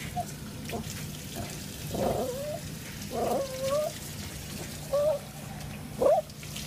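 Small wet dog whining in short cries that rise and fall in pitch, several of them, protesting its bath.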